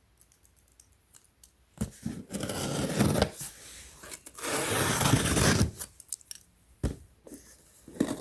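A package being opened by hand: two long scraping, tearing passes of about a second and a half each, with a sharp knock near the start and another near the end.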